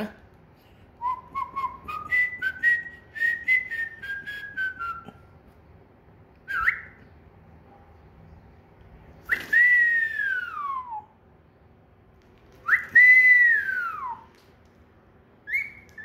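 Cockatiel whistling: a quick run of short stepped notes like a tune in the first few seconds, then a short rising note and two long whistles that each rise and then slide down.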